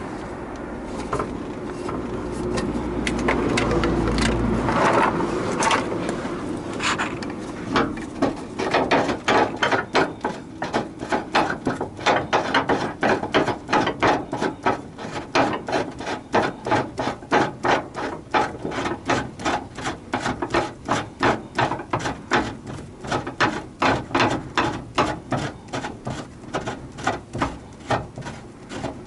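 A hand tool worked back and forth in a steady rhythm of short rasping, clicking strokes, about two to three a second, starting about eight seconds in after a few seconds of low rumble and scraping.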